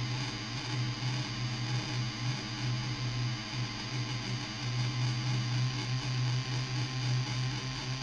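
Muscarin DIY analog drone/noise synthesizer playing a dense, noisy drone: a steady low hum with a gritty hiss of noise above it, wavering slightly as its knobs are turned.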